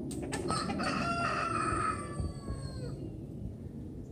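A rooster crows once: one long call of about two and a half seconds that drops in pitch at its end.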